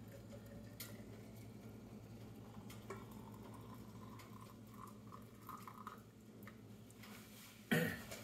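Water poured faintly from a stainless stovetop kettle into a small glass jar, over a steady low hum. A short knock near the end.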